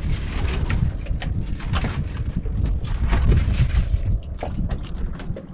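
Wind buffeting the microphone on an open-sea outrigger boat, a heavy uneven low rumble, with many small sharp knocks and splashes through it.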